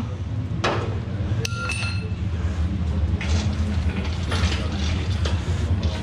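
Metal clinks and rattles as a hydraulic shop crane and its lifting chain are handled: one sharp clink with a short ring about one and a half seconds in, then several short rattling scrapes, over a steady low hum.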